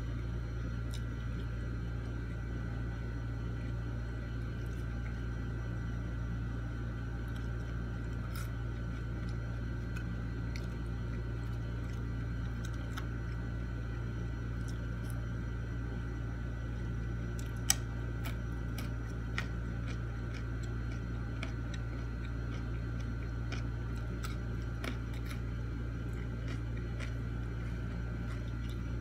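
Small clicks and smacks of eating by hand, fingers picking fries off a plate and chewing, scattered over a steady low hum, with one sharper click a little past halfway.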